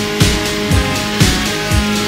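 Band music with a steady drum beat, about two beats a second, under held guitar and bass notes.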